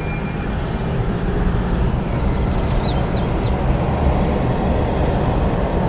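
Car driving slowly, heard from inside the cabin: a steady rumble of engine and road noise, with a few faint high chirps about two and three seconds in.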